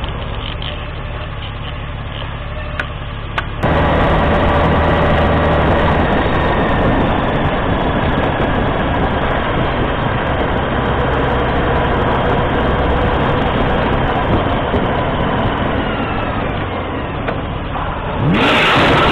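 Motorcycle engine running steadily at road speed with wind rush, heard from the rider's own bike, starting suddenly a few seconds in after a quieter stretch; its pitch eases down slightly later on, and near the end a sudden loud rushing noise breaks in.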